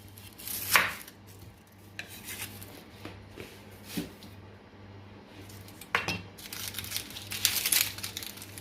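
Kitchen knife dicing an onion on a cutting board: irregular knocks and clinks of the blade, with a quicker run of strokes from about six seconds in.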